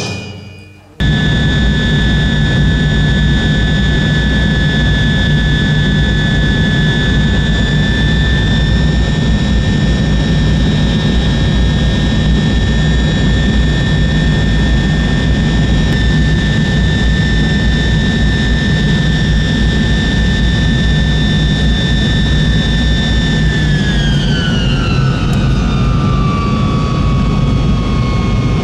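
Jet airliner engines heard from inside the cabin over the wing: a steady deep rumble under a high whine. About twenty-three seconds in, the whine slides down in pitch and settles lower as the thrust is brought back near the ground on landing.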